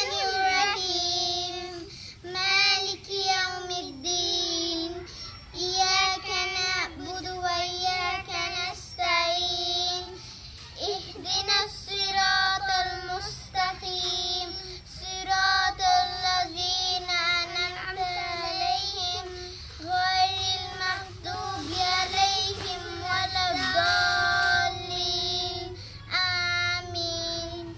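A young girl's voice chanting Quranic recitation in Arabic, melodic and steady-pitched, in short phrases with brief pauses between them.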